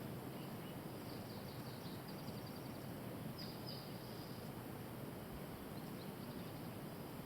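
Steady outdoor background noise with faint high bird chirps: a short rapid trill about two seconds in, then a few falling chirps.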